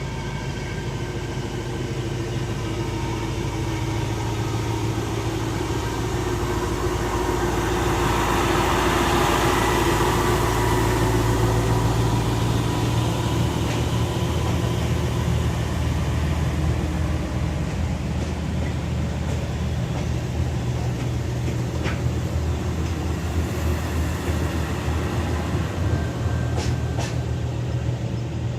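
Diesel engines of rail track maintenance machines, a multiple tie tamper and a ballast regulator, running as they pass by on the rails. The sound swells to its loudest about a third of the way through, then settles to a steady drone, with a few sharp clicks near the end.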